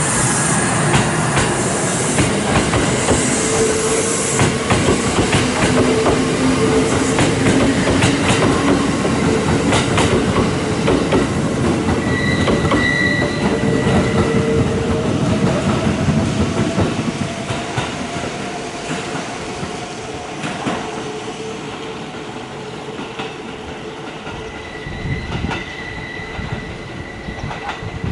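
Kintetsu 23000 series Ise-Shima Liner and 1400 series electric trains pulling out of a station: traction motors whine in several steady and rising tones while the wheels clack over rail joints, and a high flange squeal sounds twice. The noise falls away after about 17 seconds as the trains move off.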